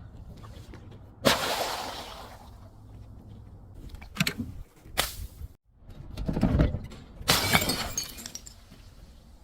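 Glass bottle breaking: a shattering crash about a second in, two sharp cracks around four to five seconds, a deep low crunch, then a second bright shattering crash of glass about seven seconds in.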